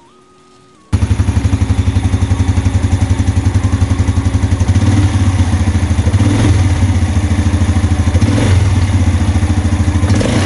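Yamaha Jupiter Z1's fuel-injected single-cylinder four-stroke engine idling with a steady, even pulse after a valve clearance adjustment. The engine sound cuts in suddenly about a second in, with no cranking before it.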